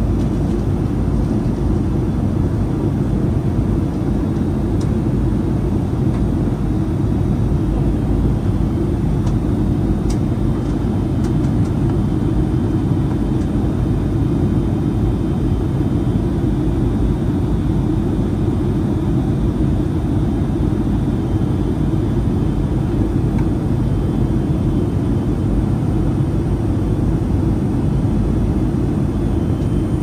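Steady low rush of airflow and jet engine noise heard inside the cabin of a Boeing 757-200 airliner in flight.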